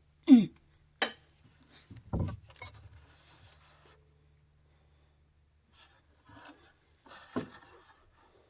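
Handling noise of someone shifting position and working by hand: scattered knocks, rubbing and scraping. The loudest is a short sound falling in pitch just after the start. There is a quiet gap in the middle before more rubbing and a knock near the end.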